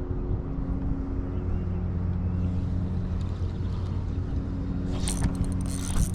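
Steady low motor hum. About five seconds in, a burst of sharp, irregular crackling noise breaks in.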